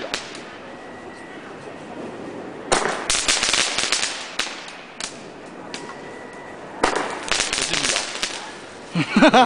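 Small fireworks crackling in two dense bursts of rapid pops, each about a second and a half long, with a single sharp crack between them.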